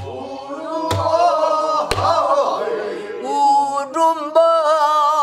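Pansori singing of a slow, lamenting line, marked by a buk barrel drum struck three times about a second apart in the first two seconds.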